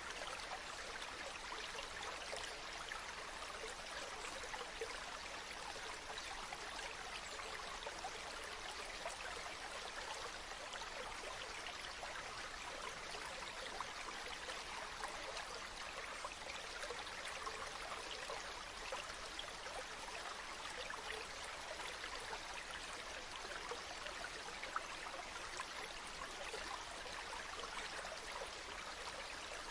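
Water running steadily, like a small stream, with a dense patter of little splashes and trickles and no rise or fall.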